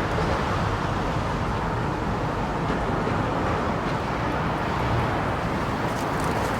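Steady background hum of road traffic, even and unbroken, with no distinct events.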